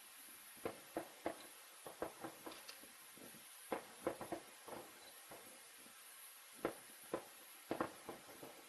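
Distant aerial fireworks bursting in irregular sharp pops, some single and some in quick clusters, each with a short echoing tail over a faint steady hiss.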